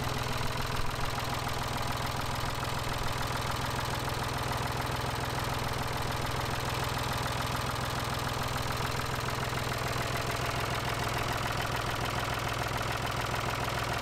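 Ford farm tractor's engine idling steadily.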